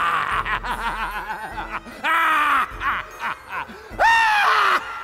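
Spirit Halloween Mr. Punchy animatronic's sound track playing: a creepy voice laughing in short bursts, then two loud, drawn-out cries falling in pitch about two and four seconds in, over music.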